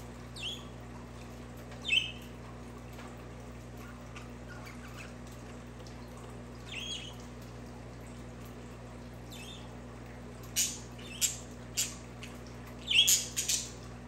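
Budgerigars chirping and squawking. Short, falling calls come a few seconds apart, then a quicker run of loud, sharp chirps near the end.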